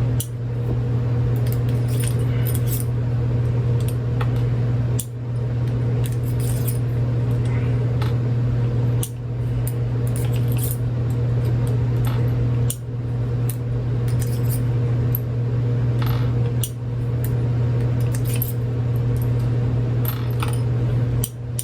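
Small metallic clicks and clinks of .22 Magnum cartridges being pushed one by one out of a single-action revolver's cylinder with an unloading rod, the cylinder clicking round at half cock between them. Under it runs a loud, steady low hum.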